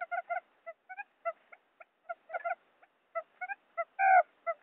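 Quail calls used as a trapping lure: a quick series of short, pitched notes, some rising, with one longer, louder call about four seconds in.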